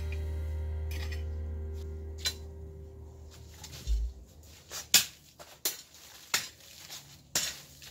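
Background music's last chord fades away, then a garden hoe chops and scrapes into dry soil and leaf litter: about eight irregular thuds, roughly one every half second to second.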